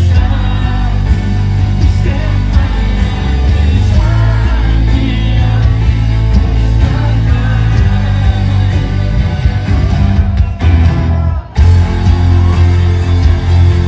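Pop song with a singer over a band, driven by a strong bass beat; the music dips briefly about ten and a half seconds in, then comes back in full.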